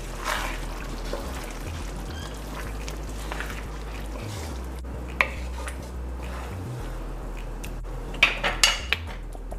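Wooden spoon stirring thick tomato meat sauce in a non-stick frying pan, with a few sharp knocks of utensil on pan, one about halfway and a quick cluster near the end.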